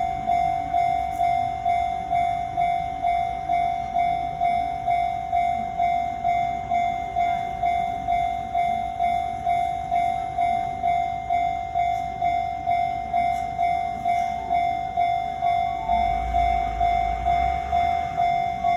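Railroad crossing warning bell ringing a steady repeating tone, about two strokes a second. A low train rumble joins it near the end as a train approaches the crossing.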